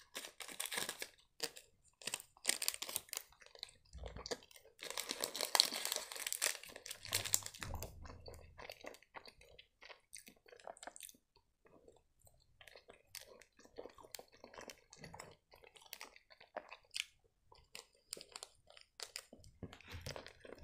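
Plastic candy-bar wrapper crinkling and tearing as a Milky Way bar is unwrapped, loudest about five to seven seconds in. Then soft, close-up chewing with small wet mouth clicks as the bar is eaten.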